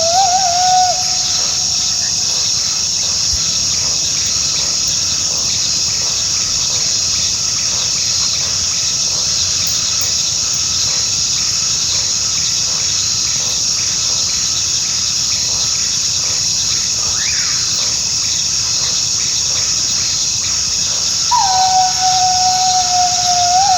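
Coyote howling in long, steady held notes: one howl trails off about a second in, and another starts near the end, dropping a little and holding with a short upward yip. A steady chorus of crickets runs underneath.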